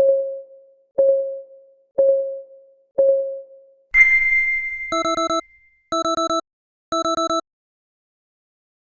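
Countdown timer's clock ticking once a second, four ticks, then a single bell-like ding rings out as the countdown ends. It is followed by the alarm: three short bursts of rapid electronic beeps, one a second.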